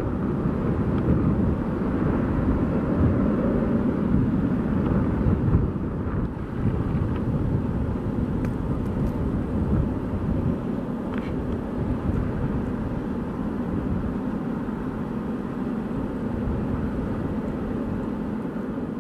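Steady low rumble of airport ramp noise from aircraft and ground equipment, with a faint steady hum underneath.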